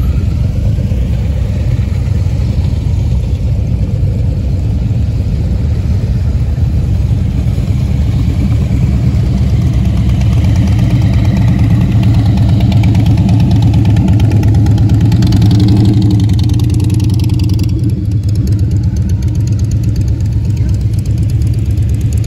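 Several motorcycles, including a cruiser and a trike, riding slowly past one after another, their engines running at low revs in a continuous low-pitched drone that grows louder about two-thirds of the way in as bikes pass close by.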